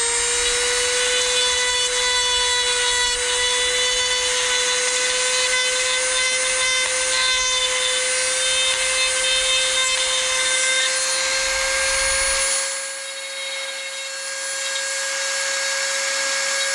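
Dremel rotary tool running at speed with a steady high whine, its bit cutting a notch in a plastic ear muff for a headset wire. About three-quarters of the way through, the grinding of the cut drops away while the whine carries on, its pitch creeping slightly upward.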